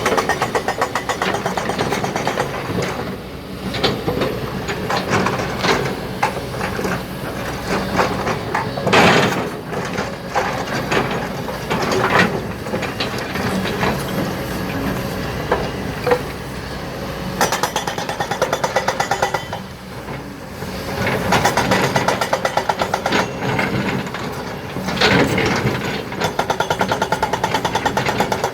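Heavy quarry machinery working: a diesel engine runs under load with a fast, even knocking rhythm. Louder clatters come about nine seconds in, about twelve seconds in, and near the end.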